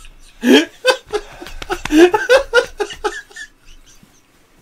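Men laughing heartily in a run of short bursts that die away about three and a half seconds in.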